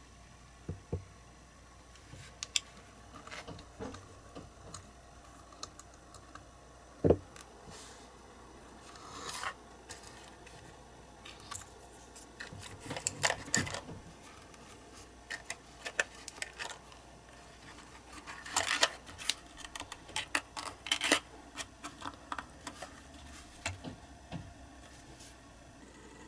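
Hands handling a small diecast toy car, its plastic boat and roof rack, and a cardboard box on a cutting mat: scattered light clicks, taps and rustles, with one sharp knock about seven seconds in.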